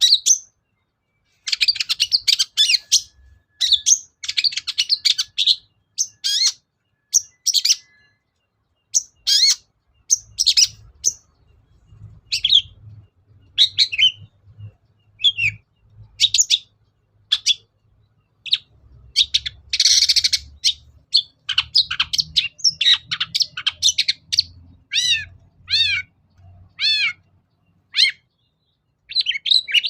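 Long-tailed shrike (cendet) singing in quick, varied bursts of chattering, scratchy and whistled notes, with mimicked calls of other birds worked in. A harsh rasping burst comes about twenty seconds in, and a run of four repeated curving whistles comes near the end.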